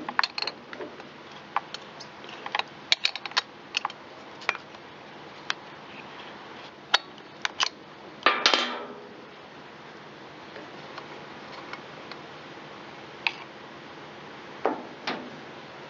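Metal clicks and clinks of a T-handle spark plug wrench against a chainsaw's engine and spark plug as the plug is taken out, many sharp taps in the first few seconds. A louder, longer scrape comes about halfway through, and a few knocks near the end.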